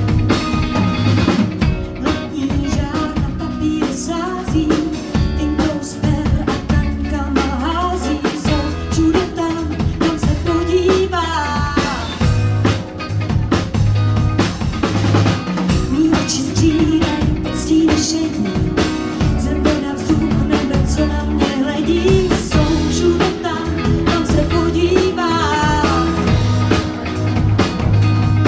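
Live band playing with a steady drum-kit beat, electric bass, electric guitar and keyboard, and a woman singing into a microphone.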